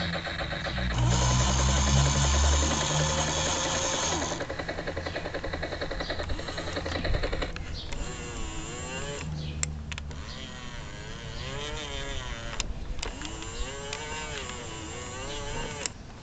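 Electronic sound effects from a Hasbro GI Joe toy helicopter's small speaker. First comes a loud, fast-pulsing chopping noise. About halfway through it gives way to a wavering tone that rises and falls, with a few sharp clicks.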